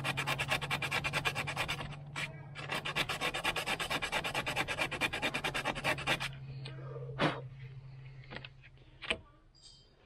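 Brush scrubbing battery cable terminal ends clean, in rapid back-and-forth strokes, with a short break about two seconds in; the scrubbing stops about six seconds in, followed by a few light clicks.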